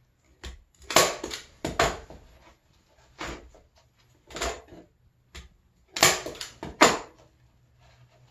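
Staple gun firing staples through carpet into wood: about half a dozen sharp snaps at uneven intervals, with short pauses between as the carpet flaps are pulled up and fastened.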